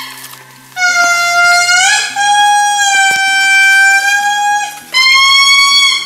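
Indri lemurs singing: loud, long wailing notes with a trumpet-like tone. After a brief pause at the start, one note is held for about four seconds, swooping upward partway through, and a higher note begins about five seconds in.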